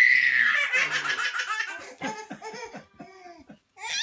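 A baby laughing: a high squeal, then a quick run of short belly laughs, tailing off into softer, lower-pitched laughs.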